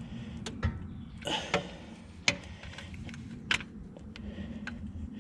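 Scattered metallic clicks and ticks from a wrench tightening the oil drain plug back into a BMW 335i's oil pan, about half a dozen at uneven intervals, over a low steady hum.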